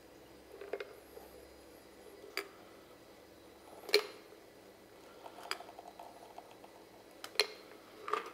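A handful of scattered light clinks and taps of a metal cocktail shaker against wine glasses and the bar counter as a cocktail is strained into two glasses. The loudest clink comes about four seconds in.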